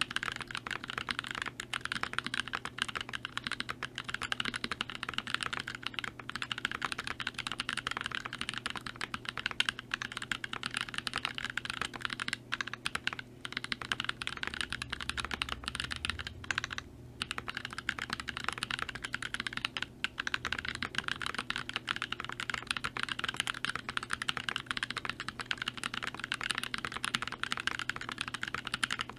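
Continuous fast typing on a custom mechanical keyboard: Gazzew Boba U4T tactile switches under GMK Fuyu keycaps in a stacked-acrylic Switch Couture Alice case, a dense run of keystroke clicks broken by a few brief pauses.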